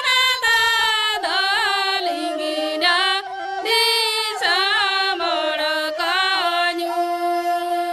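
Women singing a Santali song, one melodic line with wavering, ornamented phrases and short breaks between them, settling into a long held note near the end.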